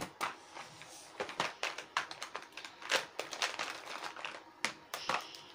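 A plastic sketch-pen box being handled and opened: irregular clicks and clatters of the plastic case and lid, with felt-tip pens rattling inside as they are picked out.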